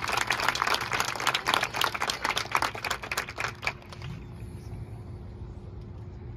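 Crowd applause: irregular hand claps dying away about three and a half seconds in, leaving a quiet low hum.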